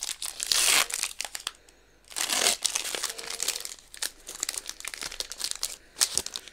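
Foil trading-card booster pack wrapper crinkling as it is torn open and pulled apart by hand, in irregular crackly bursts with a short pause about two seconds in.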